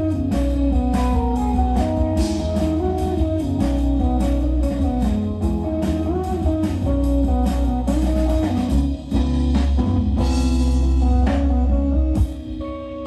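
A live band playing amplified guitar-led music over a drum kit and bass, with a steady beat of drum hits. The music drops in level near the end.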